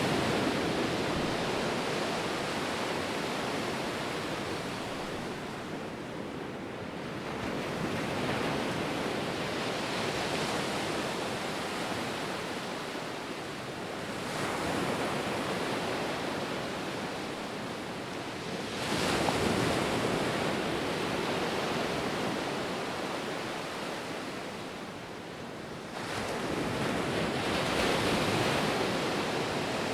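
Ocean surf: waves breaking and washing in every few seconds, the noise swelling and falling back with each one, two of them coming in with a sudden crash.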